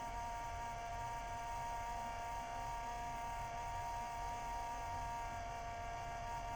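Wanbo T2 Max projector making a steady whining hum with two clear tones over a low rumble, unchanging throughout: the strange noise its owner complains of.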